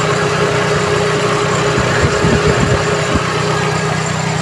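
Toyota Corolla's 2E four-cylinder engine idling steadily with the air conditioning running, a constant hum with a steady mid-pitched whine. A few low thuds come about halfway through.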